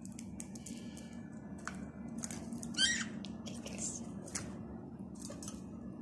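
Pet budgie cracking seeds at its feed cup: a scattered string of small sharp clicks, with one short chirp about three seconds in.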